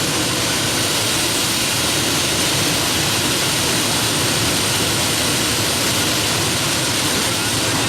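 Three Isotov TV3 helicopter turboshaft engines in a Heavy Modified pulling tractor, running hard: a loud, steady turbine rush with a thin, high, constant whine over it.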